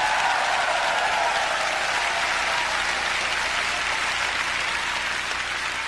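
Live concert audience applauding after the band finishes playing, the applause slowly dying down.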